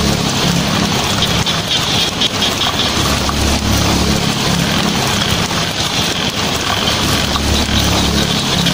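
Heavy rain falling on a tin roof: a dense, steady patter of drops, with a low rumble underneath that swells and fades every few seconds.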